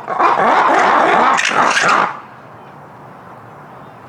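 Lemurs calling in a loud, raucous chorus of wavering shrieks and wails that lasts about two seconds and then breaks off, leaving only a low background.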